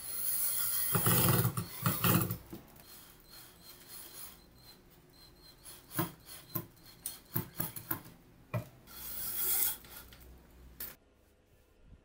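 Cordless drill driving a screw into laminated chipboard, a loud grinding rasp for about two seconds. Then a string of short, irregular clicks and a second, shorter grinding burst before it goes quiet.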